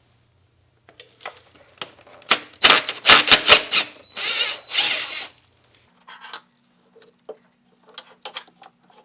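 A socket ratchet working the 12 mm bolt that holds the negative battery cable to the engine block, with several loud bursts of ratcheting in the middle, then scattered lighter clicks and taps.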